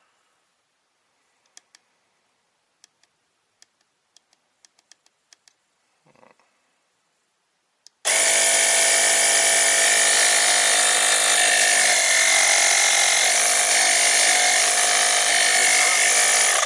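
Motopressor Minipump portable tyre inflator's electric compressor switching on about eight seconds in, after a few faint clicks, and running loud and steady with a high whine.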